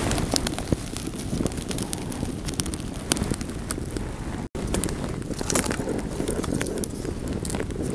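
A small twig fire crackling in a makeshift stone stove, with scattered sharp snaps, over a steady low rumble of wind on the microphone. The sound drops out for a moment about halfway through.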